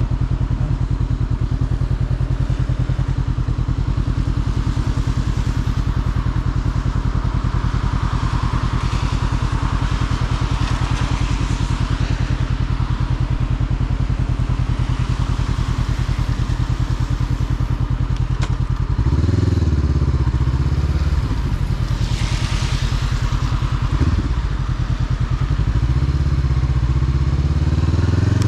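Motorcycle engine running at a steady speed under constant wind and road hiss, then about two-thirds of the way through the revs start rising and falling as the bike changes speed.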